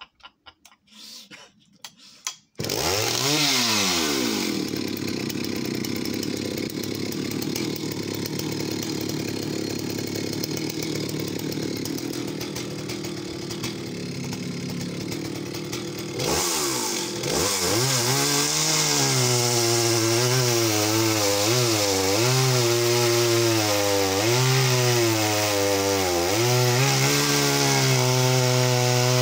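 Vintage Jonsered 80 two-stroke chainsaw being pull-started, catching about two and a half seconds in, then run at full throttle and cutting through a big, knotty log with a 23-inch bar. From a little past halfway the engine note dips and recovers over and over as the knotty wood labours the saw.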